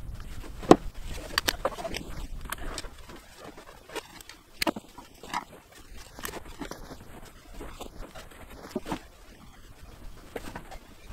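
Irregular clicks, knocks and rustling as a Honda Civic's rear bench seat is worked loose: seat-belt buckles and webbing are pulled about and the seat cushion is lifted free. The sharpest knock comes under a second in.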